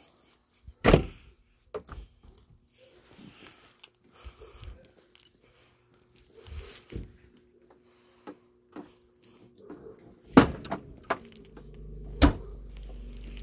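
Scattered knocks, clicks and clatter of things being handled and moved around a car, with three sharp, loud knocks about a second in, about ten seconds in and about twelve seconds in. A faint steady hum runs underneath from about three seconds on.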